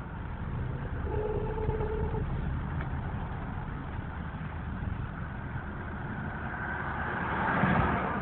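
Skoda Octavia A7 with a seven-speed DSG dual-clutch gearbox running, a steady low drone throughout, with a brief steady whine about a second in and a swelling rushing noise near the end. These are the extraneous noises the owner attributes to the DSG7 gearbox.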